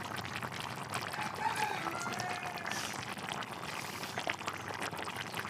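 Rabbit curry bubbling in the pot as it cooks, a dense steady crackle of small pops.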